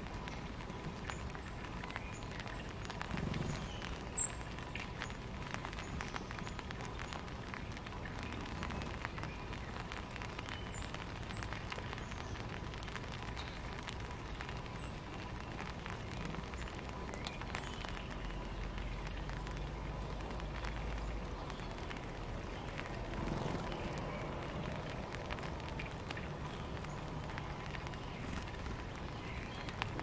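Outdoor backyard ambience: a steady noisy hiss with faint scattered clicks, and a few brief high-pitched chirps from small birds spread through it. A low rumble comes up for a few seconds about two-thirds of the way through.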